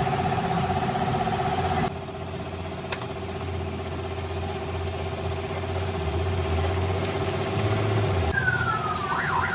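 Vehicle engine idling steadily, dropping abruptly in level about two seconds in.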